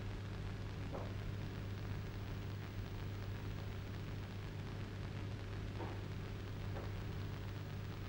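Steady hiss and low mains hum of an old film soundtrack's background noise, with no speech; a few faint brief sounds come and go in it.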